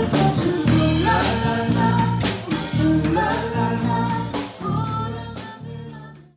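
Live band playing: electric guitar, electric bass and drum kit, with a woman singing lead and a man singing along. The music dies away near the end.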